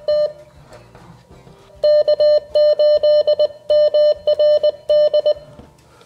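Morse code sidetone beeps from an Icom IC-705 transceiver, keyed with a freshly built N6ARA TinyPaddle: one steady tone switched on and off in quick runs of dits and dahs. After a short pause near the start, the keying picks up about two seconds in and stops a little after five seconds.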